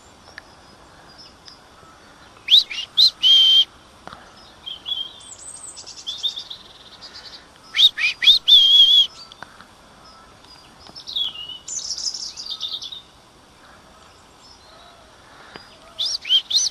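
European robin singing: short, high phrases of varied notes and trills, each a second or two long, with pauses between them.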